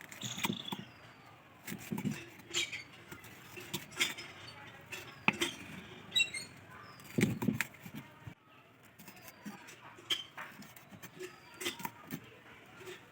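Kitchen knife dicing capsicum on a cutting board: irregular knocks and clinks of the blade striking the board, with a few heavier thuds.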